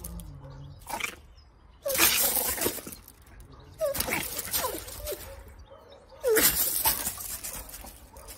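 A small dog snarling and yapping at a larger dog in about four harsh, short bursts, guarding its prize.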